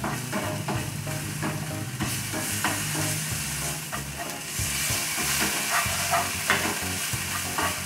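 Chopped onion, curry leaves and ginger-garlic paste sizzling in hot oil in a non-stick frying pan, with a spatula scraping and stirring them around the pan in quick repeated strokes.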